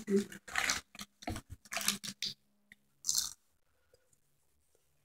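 Popcorn being chewed up close: a run of short crunchy bites over the first two seconds, and one more crunch about three seconds in.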